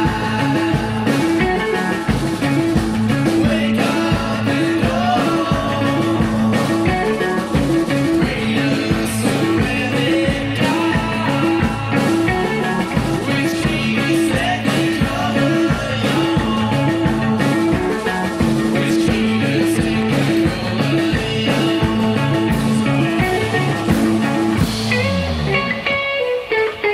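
Live band playing rock music with electric guitar, bass and drums over a steady beat. Near the end a low note slides down and the full band drops away.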